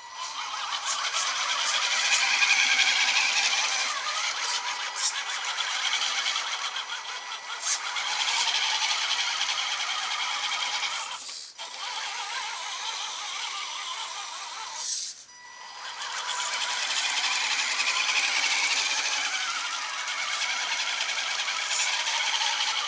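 Radio-controlled Axial SCX10 Deadbolt scale truck driving, its electric motor and drivetrain gears running with a rattling, hissing mechanical noise and a faint whine. The sound surges and eases with the throttle and cuts out briefly twice, about 11 and 15 seconds in.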